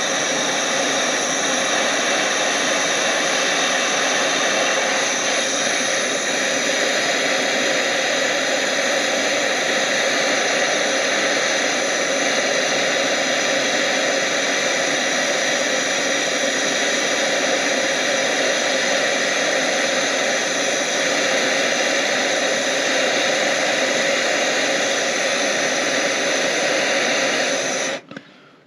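Handheld gas torch burning with a steady hiss, heating a copper wire lug for soldering; it cuts off suddenly near the end.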